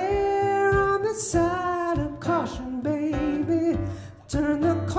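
A woman singing long held notes over her own strummed acoustic guitar, with a brief drop in sound about four seconds in.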